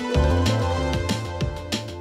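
Instrumental background music: held pitched tones over a bass line, with a regular percussive beat.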